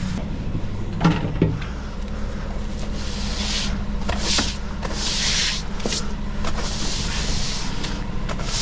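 An engine runs steadily, with a couple of knocks about a second in. From about three seconds in, a broom sweeps water across a wet stone patio in repeated swishing strokes, roughly one a second.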